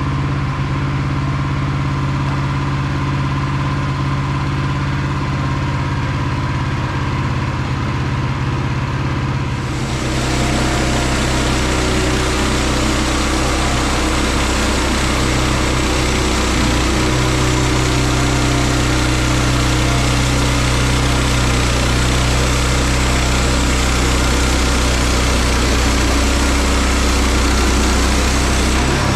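Woodland Mills HM122 portable band sawmill's gas engine running steadily. About ten seconds in the sound shifts and grows fuller and slightly louder, with a hiss added over the engine, as the mill goes to work.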